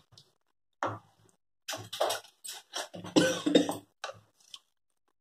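Spatula stirring the watery tomato chutney in a steel pan: a run of short, irregular scraping strokes with brief gaps between them.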